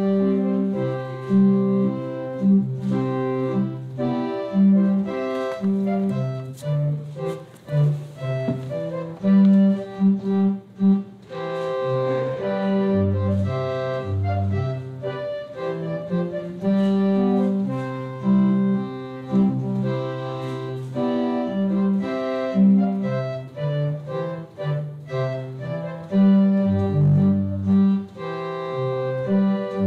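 Organ playing wedding processional music: held chords over a bass line that steps from note to note.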